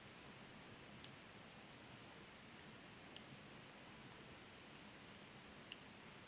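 Metal knitting needles clicking together three times while knit stitches are worked, the first click about a second in being the loudest, over a faint hiss.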